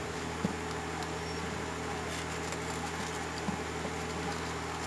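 Steady low hum and hiss, with a few faint light clicks of small headset parts being handled.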